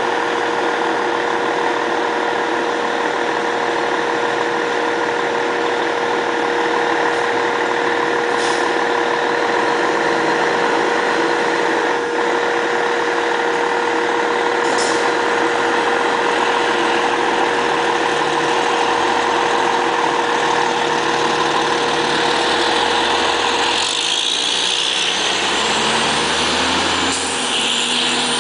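Fire ladder truck running at the station, with a steady high-pitched whine throughout. About 24 seconds in, the engine note rises as the truck pulls away, with a hiss near the end.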